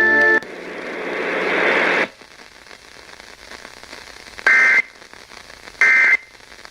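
Radio static swelling louder and then cutting off about two seconds in, followed by faint hiss. Two short, shrill two-tone bursts of Emergency Alert System SAME digital data then sound a little over a second apart.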